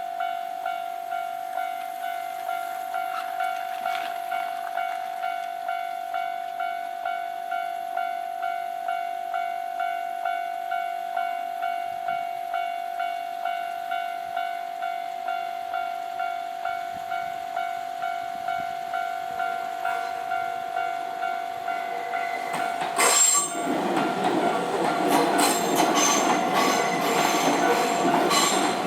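Japanese level-crossing warning bell ringing in a rapid, even repeat for most of the time. Near the end a Nankai Koya Line train runs through the crossing, with wheel clatter over the rail joints and high wheel squeal over the ringing.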